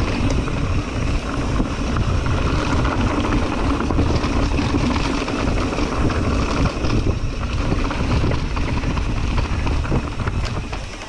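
Mountain bike rolling fast down a dirt flow trail: tyre noise and wind on the microphone, with scattered clicks and rattles from the bike. It gets quieter shortly before the end.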